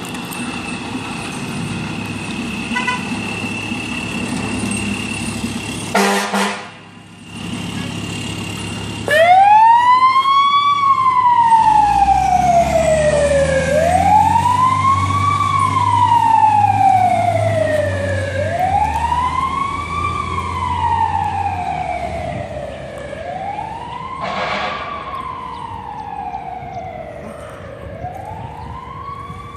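Fire engine idling, a short loud burst of noise about six seconds in, then its siren starts wailing, rising quickly and falling slowly about every four and a half seconds, over the truck's engine as it pulls away. Another brief burst of noise sounds near the end.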